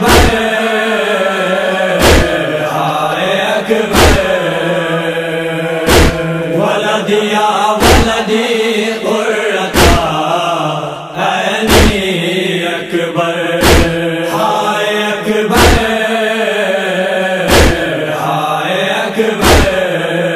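Noha recitation: voices chanting a wordless lament melody over a steady low drone, with a heavy thump about every two seconds keeping the beat.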